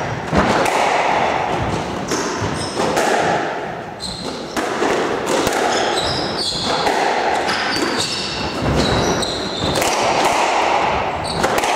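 Squash rally: the ball smacks off rackets and the walls in a string of sharp knocks, and shoes squeak on the wooden court floor.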